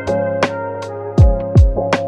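Background music with a steady beat: deep thumps and sharp ticks over held notes.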